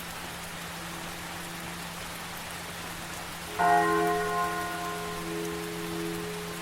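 Steady rain over a low hum, with a single church bell toll struck a little past halfway that rings on and slowly fades.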